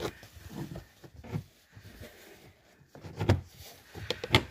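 Knocks and clicks of plastic door-sill trim being handled and pressed against the sill, with two sharper knocks near the end.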